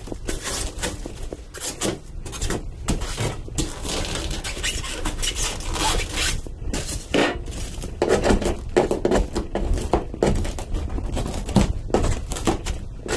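Irregular scraping, rustling and clattering of debris and plastic being handled, with many sharp knocks, growing a little louder about two thirds of the way through.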